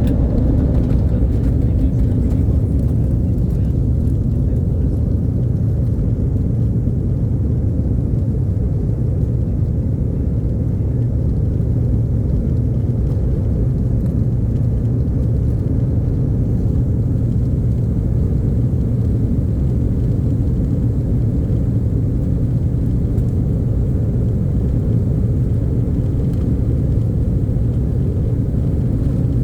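Boeing 737 jet engines during takeoff: a loud, steady low rumble that holds even throughout.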